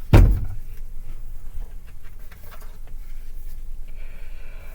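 A thump, then faint rustling and small clicks of a hardcover picture book being handled and its pages turned.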